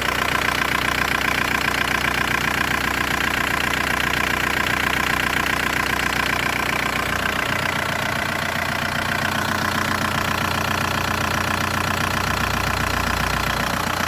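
VW 1.9 TDI (ALH) diesel engine idling, heard close up under the bonnet, with a steady dull knocking in its running that the owner cannot trace.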